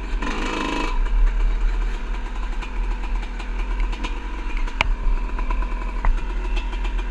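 Two-stroke dirt bike engine running under the rider on a gravel road, with a short burst of louder noise just after the start and two sharp knocks in the second half.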